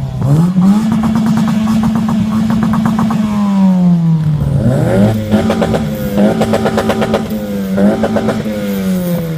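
Toyota Yaris T Sport's 1.5 VVT-i inline-four revved hard through an aftermarket exhaust. The revs climb quickly and hold at the rev limiter for about two seconds, drop back, then climb to the limiter again and hold there with a couple of brief dips, falling away near the end.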